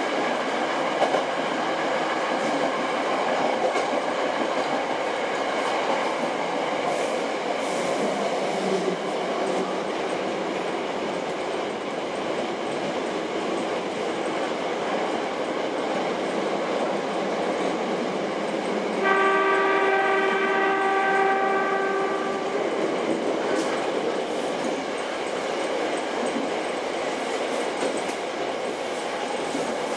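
Hankyu Kyo-train running through the tunnel, the steady rumble of wheels on rails heard from inside the car. A little past the middle, a horn sounds one steady note for about three and a half seconds.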